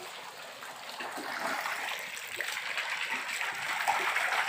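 Steady rushing of water running or splashing into a fishing pond, growing a little louder about two seconds in.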